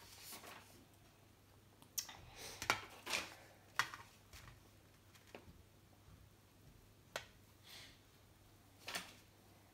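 Quiet, scattered clicks and taps of a small plastic toy being handled in and against a teacup, a cluster about two to four seconds in and a couple more near the end.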